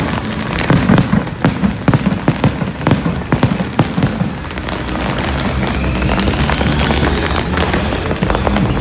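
Fireworks display: a rapid run of sharp bangs and crackles for the first four seconds or so, then a steadier crackling hiss with faint rising whistles in the second half.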